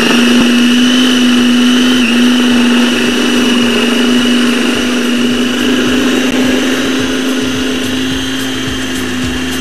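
Electric food processor (chopper) motor running steadily, its blade grinding raw minced meat and onion into a fine paste. The pitch holds steady apart from a brief dip about two seconds in.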